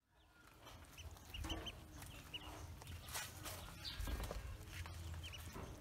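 Ducklings peeping in short, high chirps, several in quick succession, over soft splashing and paddling in a tub of water.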